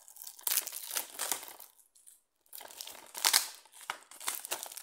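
Plastic shrink-wrap being torn and crumpled off a DVD case, in irregular crackling bursts with a short pause about two seconds in.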